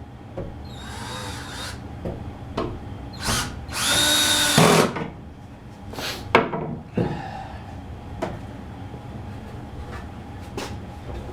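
Power drill running in two short bursts, a brief one about a second in and a longer, louder one about four seconds in, with workshop knocks and clatter between them.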